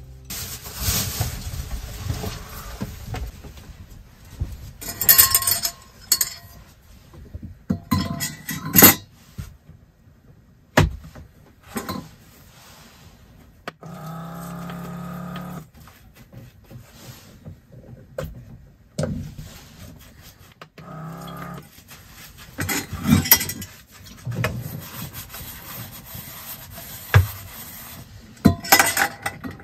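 Dishes being washed in a small stainless steel sink: metal dishes clatter and knock, a small water-dispenser pump hums for about two seconds midway, and in the later part the dishes are scrubbed in repeated rubbing strokes.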